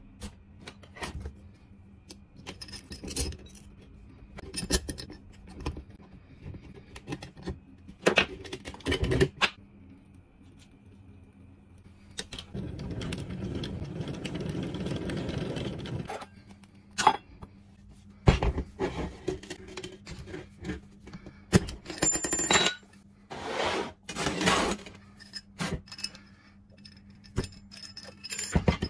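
Metal clinks, clicks and scrapes of a small stainless-steel pressure popcorn popper being clamped shut, handled and unclamped, with a rushing noise lasting a few seconds midway.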